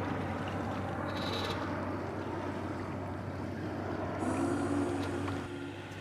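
Sailboat ghosting along in a very light breeze: a steady wash of water and wind with a constant low hum underneath. A brief pitched hum sounds for just over a second about four seconds in.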